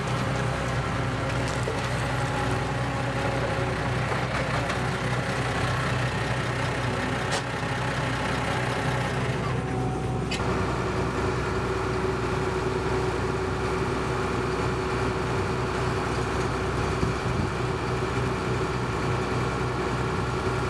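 New Holland TX65 Plus combine harvester's diesel engine running steadily at idle.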